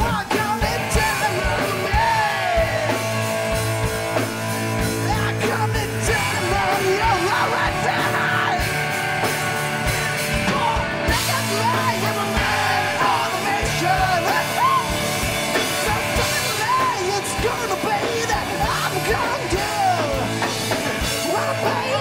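Rock band playing live: electric guitars, bass guitar and a drum kit, with a male lead vocalist singing over them.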